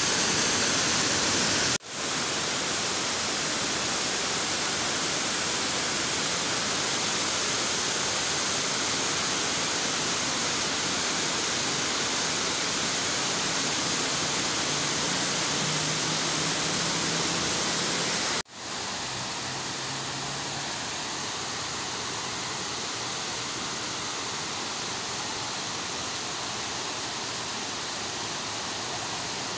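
River water pouring over a low concrete weir: a steady, even rush of falling water. It breaks off sharply twice, at about 2 seconds and at about 18 seconds, and is a little quieter after the second break.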